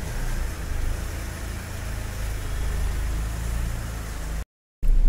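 Mahindra XUV500's engine idling with a steady low rumble, heard from outside the car. The sound cuts out completely for a moment near the end.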